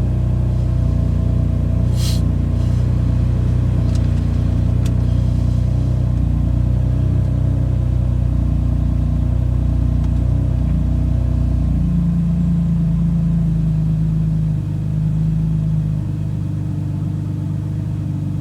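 BMW F80 M3's twin-turbo S55 inline-six idling steadily after a start, its idle note stepping down slightly about twelve seconds in. It idles evenly here, without the cold-start stutter the owner blames on a lean-running aftermarket intake. A brief click about two seconds in.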